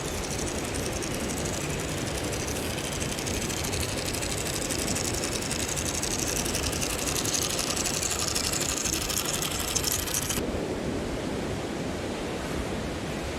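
Electric motor and gear drivetrain of an RC crawler truck running, a steady high mechanical whir that stops about ten seconds in, leaving only a low steady outdoor noise.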